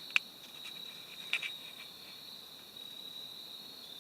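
Crickets chirring in a steady, high, even drone, with two short sharp clicks, one just after the start and one about a second and a half in.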